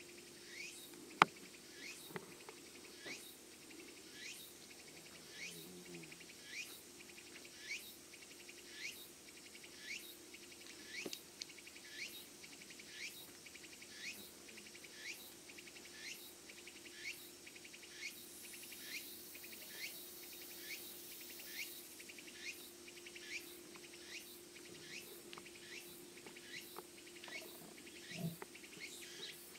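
Insects chirping: a short sweeping chirp repeats about twice a second, over fainter, faster high-pitched pulsing and a steady low hum. A single sharp click about a second in.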